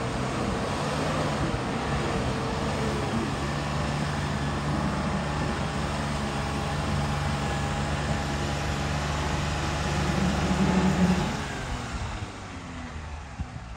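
Bus engine running steadily as the bus drives along a muddy track toward the listener. It grows louder about ten seconds in, then drops off about a second later.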